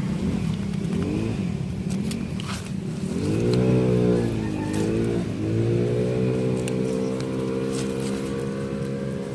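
A motor vehicle engine running nearby. It climbs in pitch as it accelerates about three seconds in, dips briefly, then holds a steady pitch. Scattered light clicks of stones and dry leaves being moved by hand sound over it.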